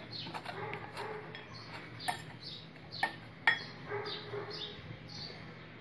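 Wire balloon whisk stirring dry gram flour in a glass bowl, clinking sharply against the glass a few times. A run of short, high chirps falling in pitch repeats about every half second throughout.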